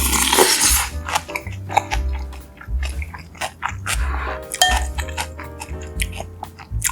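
Background music with a pulsing bass line, over close-up eating sounds: chewing and biting with sharp wet clicks, and a short noisy burst near the start.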